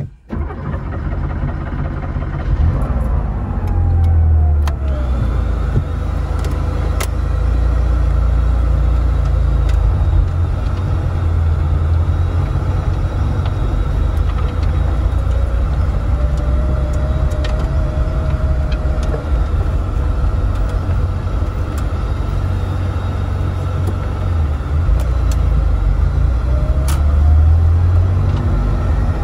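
Air-cooled Porsche 911 flat-six engine and road noise heard from inside the cabin while driving: a loud, steady low rumble whose pitch falls a few seconds in and rises again near the end as speed changes.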